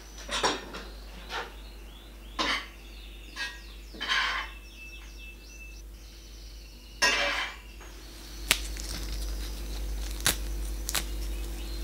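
A metal spoon stirring mushrooms in a cast-iron skillet, scraping across the pan about six times in short strokes. Near the end come three sharp clicks of the spoon knocking against the pan.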